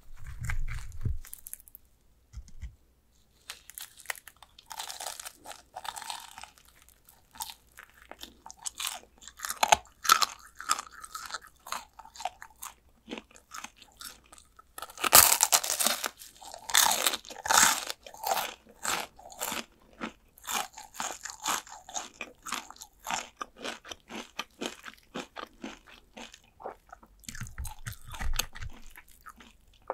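Close-miked biting into and chewing crispy-battered fried chicken drumsticks: irregular crunching and crackling bites, densest about halfway through. A low dull thump at the start and again near the end.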